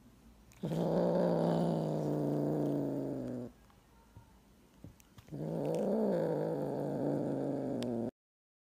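Tabby kitten growling while it holds a piece of paper in its mouth: two long, low growls of about three seconds each, the second wavering up and down in pitch. The sound cuts off suddenly near the end.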